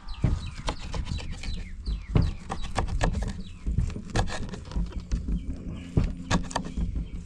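Irregular knocks and clicks from food being handled and chopped, a few a second, over a low rumble.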